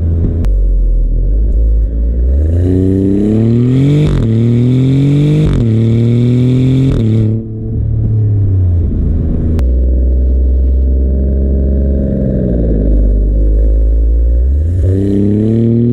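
Exhaust of a 2024 Maserati GranTurismo Modena's Nettuno 3.0-litre twin-turbo V6, heard right at the quad tailpipes, under hard acceleration. The pitch climbs and drops sharply at two quick upshifts, then the driver lifts off and it settles to a lower drone that falls as the car slows. A short surge of revs comes near the end.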